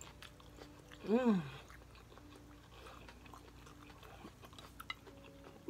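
Quiet chewing of food, with one short hummed "mmm" of enjoyment about a second in that rises and falls in pitch.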